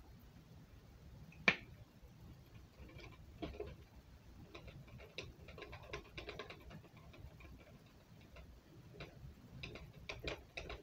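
Plastic water bottle handled on a table: a sharp knock about a second and a half in as it is set down, then scattered faint clicks and crackles of the thin plastic in his grip, a quick cluster of them near the end.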